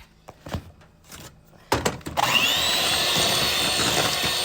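An electric mixer switches on about two seconds in. Its motor whines up to speed and then runs steadily, beating the butter, sugar and eggs for cookie dough. Before it starts there are a few light knocks and clicks.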